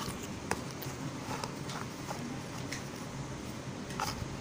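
Scattered light clicks and taps of small plastic toy pieces being handled and set down, a few separate ticks over a steady background hiss.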